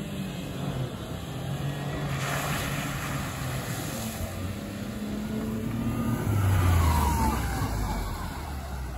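Honda Acty mini trucks driving hard on grass, their small engines revving up and down, with a hiss of water spraying about two seconds in as one runs through the wet pond edge. Near the end one truck's engine comes in loud and low as it drives close by.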